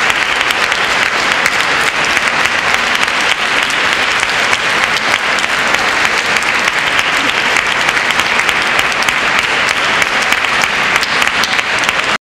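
Large audience applauding, a dense, even clapping that cuts off suddenly near the end.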